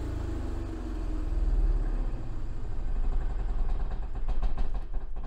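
Onan QG 3600 LP propane generator running just after its stop switch is pressed, heard from inside the motorhome. Its steady low hum turns into an uneven pulsing from about a second in.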